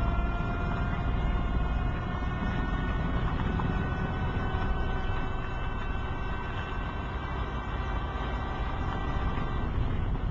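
Vehicle engine running, heard from inside the car as a steady low rumble, with a thin high whine held throughout that slowly rises in pitch.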